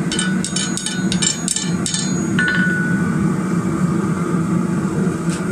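Light blows of a hand hammer on a red-hot twisted square steel bar over an anvil, gently straightening the twist: a quick run of about five ringing taps a second for some two seconds. Then one clear ringing clink of metal on the anvil, over a steady low hum.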